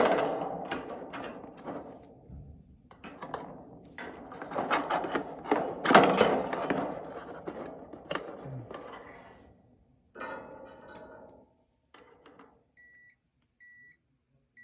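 Clatter and rustling of the multimeter probes and dryer parts being handled, then near the end a multimeter's continuity tester beeping in short, evenly spaced beeps about a second apart: the new replacement part is showing continuity.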